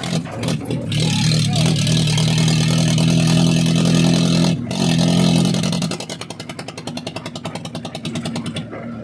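Mahindra tractor diesel engine run without its silencer, held at high revs with a loud open exhaust, then dropping back to idle about six seconds in, where the individual exhaust pulses come through as an even rapid beat. There is a brief break in the revving about halfway through.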